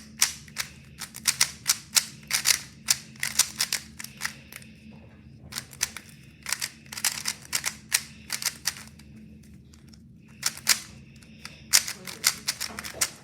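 Standard Rubik's-brand 3x3 cube being turned quickly during a solve: rapid runs of sharp plastic clicks and clacks as the layers snap round. The runs break off twice for about a second.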